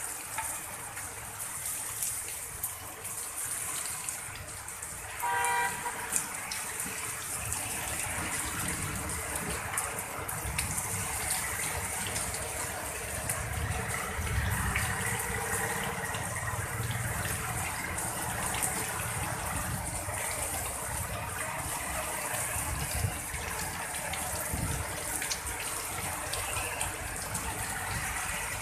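Heavy rain pouring steadily, with a low rumble underneath. A vehicle horn honks briefly about five and a half seconds in.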